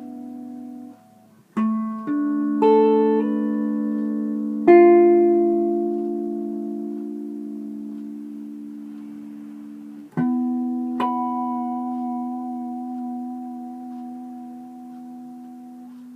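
Carvin SH445 semi-hollow electric guitar, middle position with both Fralin Pure PAF humbuckers in parallel, playing chords picked up by an iPad's built-in mic. A few chords and single notes come in the first few seconds, then a loud chord about four seconds in and another about ten seconds in, each left to ring with long sustain.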